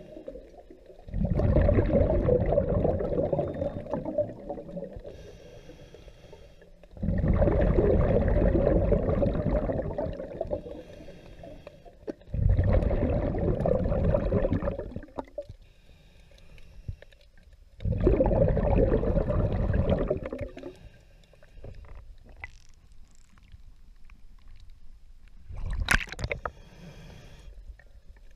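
Scuba diver breathing through a regulator underwater. Four loud bubbling rumbles of exhaled air come about every five to six seconds, each lasting two to three seconds, with a quieter hissing inhale between them. A brief sharp noise comes near the end.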